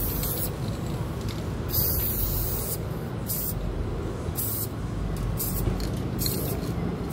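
Aerosol spray-paint can hissing in a series of bursts of uneven length, one lasting about a second and several short ones, as paint is sprayed onto a wall, over a steady low rumble.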